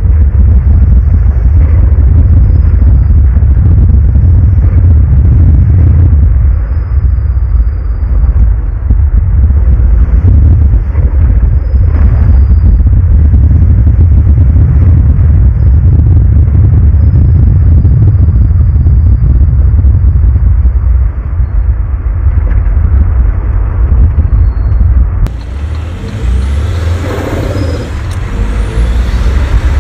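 Saab 9-5 heard from inside the cabin while driving over a broken, patched road: a heavy, steady low rumble of tyres and suspension. About 25 seconds in, the sound changes abruptly to a lighter rumble with more hiss as the car is on a smoother street.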